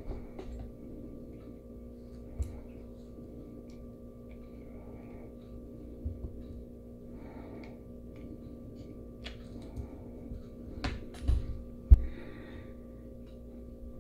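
Light handling sounds of tweezers lifting small wheel-and-axle pieces out of a plastic-wrapped cup and setting them down: scattered small clicks and a rustle of plastic film. There is a sharp knock near the end, over a steady low hum.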